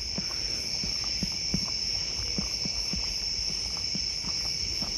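Night chorus of crickets: a steady high-pitched trilling, with faint short ticks about three times a second underneath.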